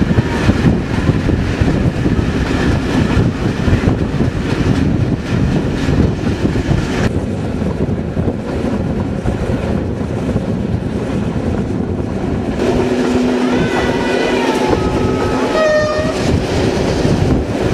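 A train running on rails with a steady rumble and wheel clatter, and a train horn sounding several tones at once for about three seconds near the end, its pitch bending partway through.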